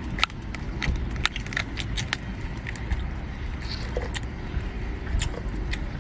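Crayfish shells being cracked and chewed: an irregular run of sharp crunches and clicks, several a second.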